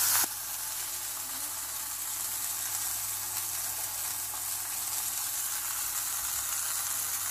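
Hamburger patty sizzling as it fries in a pan, a steady hiss that drops a little in level just after the start.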